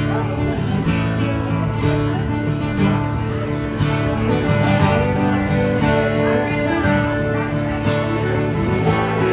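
Acoustic guitar playing the instrumental introduction of a country song, strummed and picked at a steady tempo, before the vocals come in.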